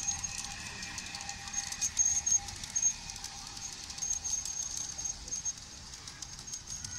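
Gauge 1 model train running along its garden track: quick, irregular clicking and pattering of small wheels over the rails, with a thin high whine that comes and goes.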